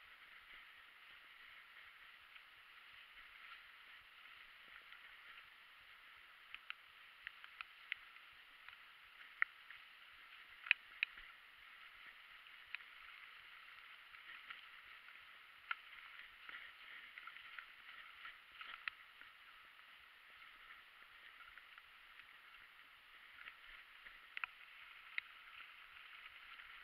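Fat-tyre mountain bike rolling over a wet, rocky trail: a faint steady hiss with scattered sharp clicks and knocks from the bike, clustering and loudest about ten seconds in.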